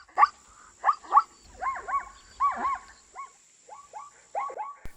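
Zebra calling: a run of short yelping barks, each rising and falling in pitch, about three a second.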